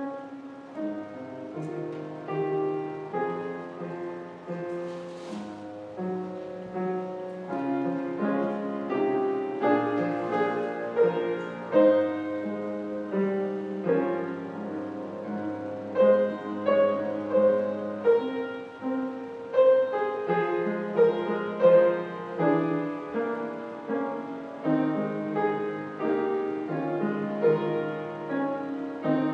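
Solo piano playing a slow, quiet reflective piece with sustained chords.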